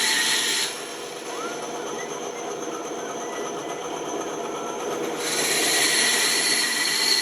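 A bandsaw runs with a steady hum and whine. It gets about ten decibels louder, with a hiss, in two stretches, at the start and again from about five seconds in. These are typical of the blade cutting through wood, with the saw running more quietly between cuts.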